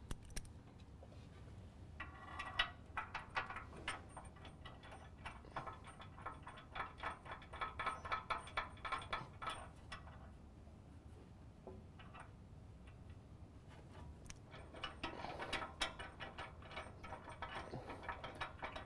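Bolts with lock washers and flat washers being threaded by hand into the nut plates of a steel bumper bracket: faint, irregular metal clicking and clinking, in several spells about two, seven to ten and fifteen seconds in.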